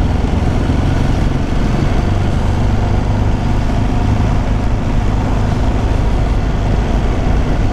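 Ducati sportbike's V-twin engine running steadily at low revs while riding at low speed, with wind rushing over the microphone.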